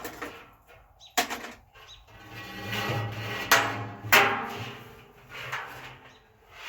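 Handling noises from a steel bait barrel and its cable hardware: a few sharp knocks and clanks with scraping and rustling between them.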